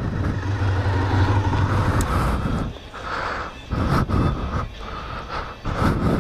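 Honda RVF400 V4 engine running at low revs as the motorcycle creeps forward, a steady low hum for the first couple of seconds, then uneven surges of noise, with wind buffeting the helmet-camera microphone.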